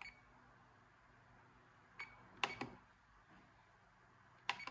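Sharp clicks of buttons being pressed on an RC radio transmitter: one about two seconds in, a quick pair just after, and one more near the end.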